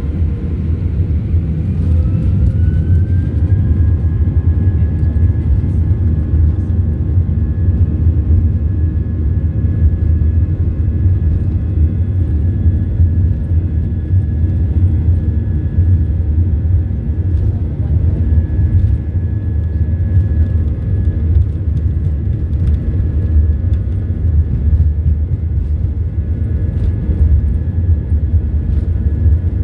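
Airbus A319 engines spooling up to takeoff power: a howl that rises in pitch over the first few seconds, then holds steady over a heavy, constant low rumble.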